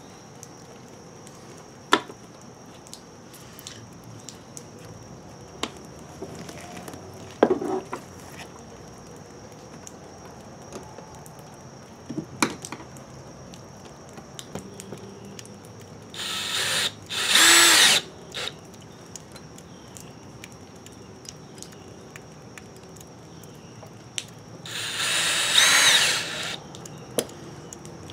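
Cordless drill/driver tightening a hose clamp on an RV's water tank fill hose, running in two short bursts of motor whine several seconds apart. Light clicks and knocks of handling come in between.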